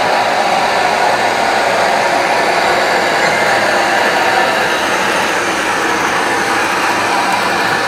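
Model train running along the track: a steady whirring of the locomotive's motor and the rolling of its freight cars' wheels on the rails.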